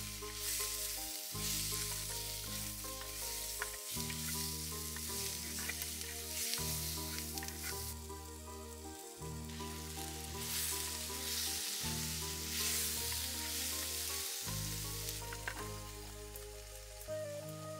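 Onions, green chillies and chicken sizzling as they fry in a clay pot, stirred with a wooden spoon, with a few light knocks. Background music with long held low chords runs underneath.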